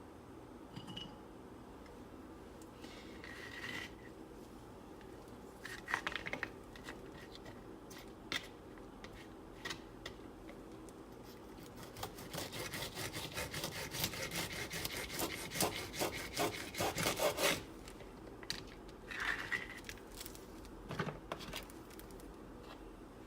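Knife cutting fresh green beans on a wooden cutting board: scattered knocks and rasping slices, then a quick run of rapid chopping strokes for about five seconds past the middle.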